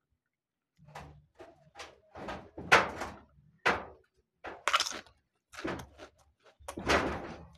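Close-up crunching and chewing of Lay's seaweed-flavoured potato chips: about a dozen sharp, irregular crunches starting about a second in.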